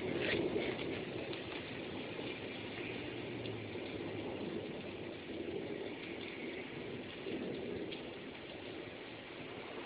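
Steady thunderstorm rain, with scattered individual drops ticking through it.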